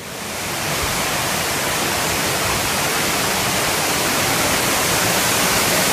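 Steady rushing of running water, a loud even hiss that builds up in the first half-second and then holds.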